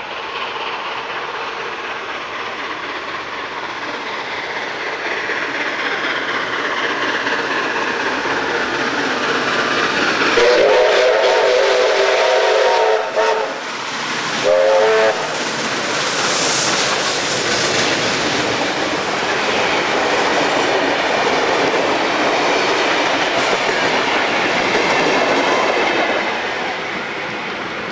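Steam-hauled train of NSW locomotives 3237 and 5917 double-heading through a station: its noise builds as it approaches, a steam whistle gives one long chime blast and then a short one, and the locomotives and carriages pass with rail clatter before it eases off near the end.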